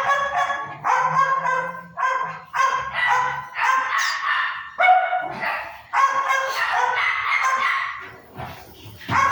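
A dog barking and yelping over and over, pitched calls of about half a second to a second each, coming roughly once a second.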